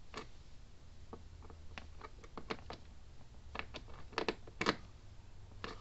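Scattered small clicks and taps at irregular spacing, a dozen or so, from handling the power cord and parts of an opened electric fence charger. The charger is not yet pulsing.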